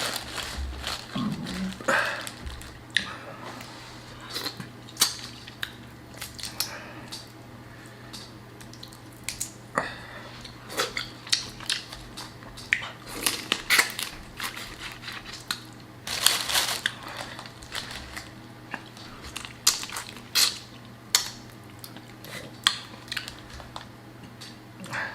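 Close-up eating sounds of a boiled seafood boil: crawfish and shrimp shells cracking and being peeled by hand, with chewing, as irregular sharp crunches and clicks with short pauses between them.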